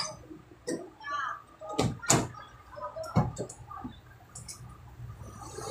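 A few sharp knocks and clicks, three of them louder than the rest, with brief low speech and a steady low hum underneath.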